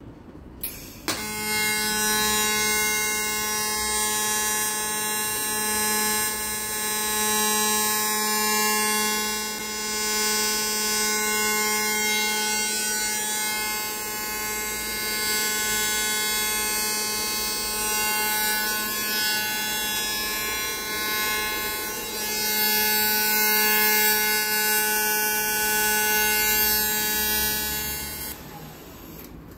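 Electric arc welder welding a repair on a motorcycle frame: a steady buzz with the hiss of the arc, starting about a second in and cutting off suddenly about a second before the end.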